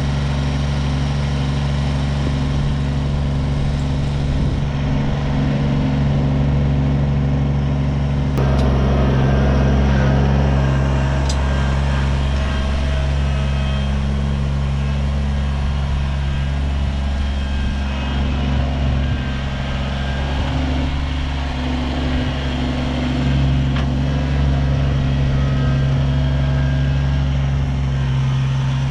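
Kubota BX23S tractor's three-cylinder diesel engine running steadily, growing a little louder and busier about eight seconds in, with two brief sharp clicks soon after.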